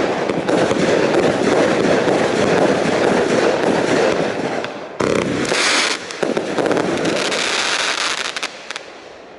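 A firework fan cake firing a fast, unbroken stream of shots, then, about five seconds in, bursting into its crackling silver finale: a dense high-pitched crackle that dies away near the end.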